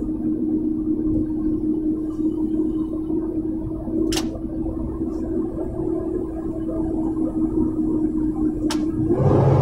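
Inside a vehicle cabin at highway speed: a steady engine drone with a held hum over low road rumble, broken by two sharp clicks. Near the end the drone rises in pitch and grows louder.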